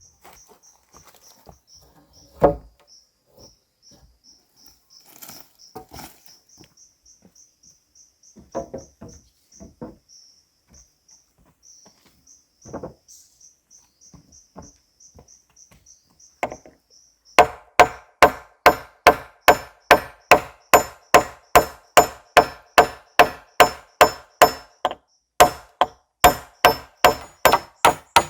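An insect chirps in a steady high pulse, with a few scattered knocks on wood. About two-thirds of the way through, a rapid, even run of tool strikes on wood begins, about two and a half blows a second, each with a short ring.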